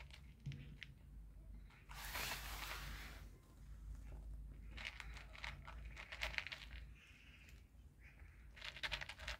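A cat crunching dry kibble: quick runs of crunches in the middle and again near the end. A brief rushing noise comes about two seconds in.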